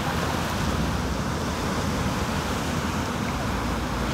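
Two low-flying military helicopters, a Black Hawk and a tandem-rotor Chinook, running with a steady low rotor rumble, mixed with surf breaking and wind noise.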